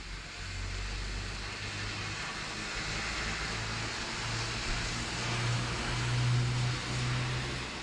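Steady hiss of rain on a wet street with a motor vehicle passing: a low engine hum builds, is loudest about six to seven seconds in, then eases.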